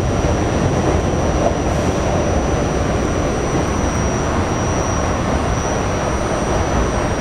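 Kawasaki R68A subway car running at speed, heard from inside the car: a steady loud rumble of wheels on rail with a thin, steady high whine over it.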